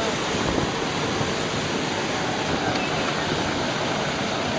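Steady, loud rushing noise of an airliner, holding an even level throughout, with faint voices underneath.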